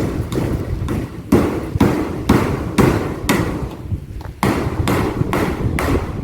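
Hammer striking nails into a tin-sheet shed frame, steady blows about two a second.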